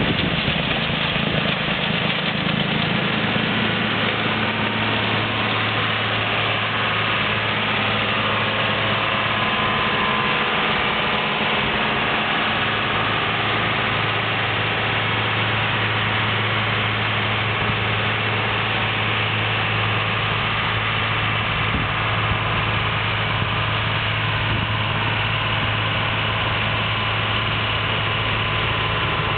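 John Deere 4450 tractor's six-cylinder diesel engine running at a steady speed, a constant low hum under an even rushing noise.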